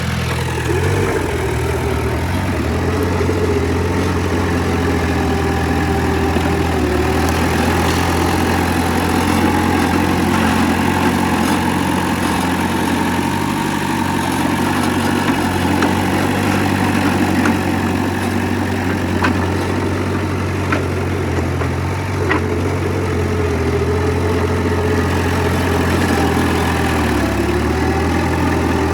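Diesel engine of heavy earthmoving machinery running steadily at a low, even pitch, with a few light clicks in the middle.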